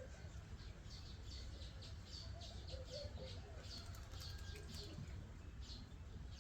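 A small bird chirping: a quick series of short, high chirps, two or three a second, that stops about a second before the end, over a faint steady low rumble.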